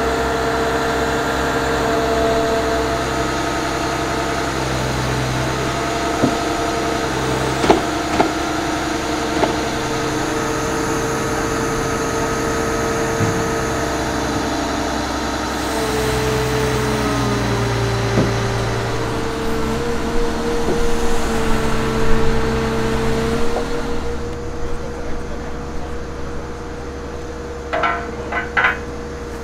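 Diesel power pack of a self-propelled modular transporter running steadily under a heavy load, with a few sharp knocks.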